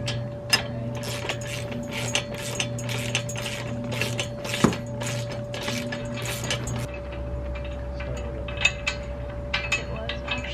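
Hand tool clicking and clinking against a steel weight-bench frame as its bolts are tightened: a quick run of clicks that thins out about two-thirds of the way through. A steady low hum runs underneath.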